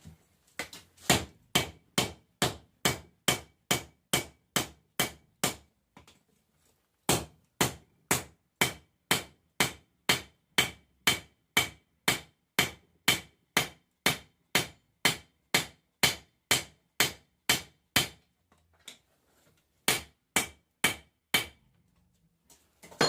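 Hammer blows on hot 1080 high-carbon steel over an anvil, forging a knife blank: steady strikes at about two and a half a second, each with a short metallic ring. They come in three runs with brief pauses between, near the middle and again near the end, with a last single blow at the very end.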